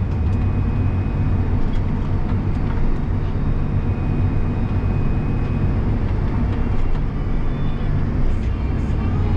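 John Deere 7250R tractor's diesel engine running steadily under load while driving on the road, heard from inside the cab as an even low drone.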